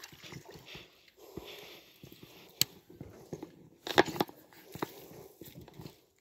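Topwater popper lure being chugged across the water on the retrieve: a few sharp plops and splashes, the clearest about two and a half and four seconds in.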